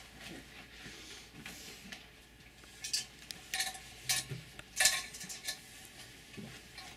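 Scattered light clinks and clatters of objects being handled, a few sharp ones about three to five seconds in.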